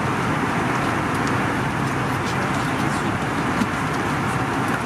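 Steady roar of an Airbus A320's cabin in flight: engine and airflow noise, with a few faint clicks.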